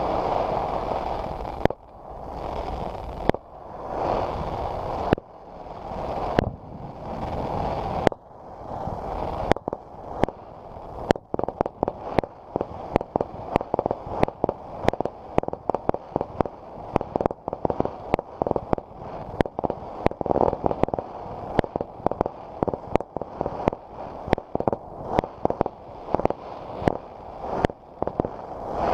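Fireworks going off. For the first ten seconds or so there are repeated swells of rumbling noise broken by sudden bangs. After that comes a rapid run of sharp cracks and pops, several a second.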